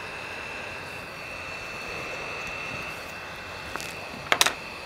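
Hot air rework station's handpiece blowing steadily, a hiss of air with a thin steady whine, while it heats the glued edge of a touch screen to soften the adhesive. A few light clicks near the end.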